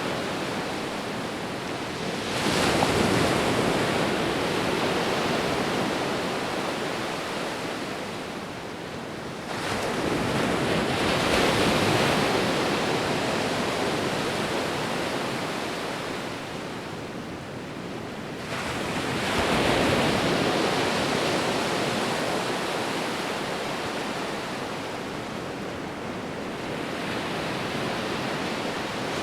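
Sea waves breaking and washing on a shore: three surges of surf, each swelling quickly and then hissing away over several seconds, roughly eight seconds apart.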